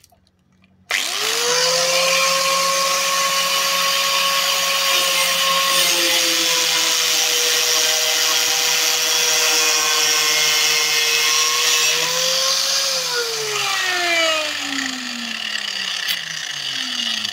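Angle grinder fitted with a homemade cardboard cutting disc, switched on about a second in and running with a steady high whine; its pitch sags slightly in the middle as the disc cuts through thin wood. Near the end it is switched off and winds down, the whine falling in pitch.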